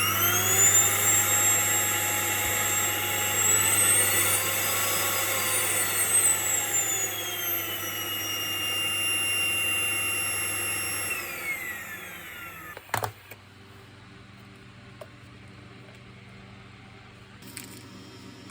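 Electrolux UltraSilencer ZUS3970P vacuum cleaner motor spinning up with a rising whine, running with its pitch rising and falling, then winding down about eleven seconds in, followed by a single sharp click.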